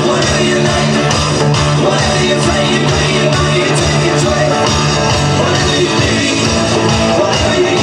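Loud rock music with singing, guitar and a steady beat.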